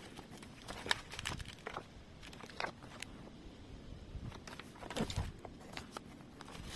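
Paper cards and leaflets being handled over an open cardboard box: scattered light rustles and taps, the sharpest about a second in and again near five seconds.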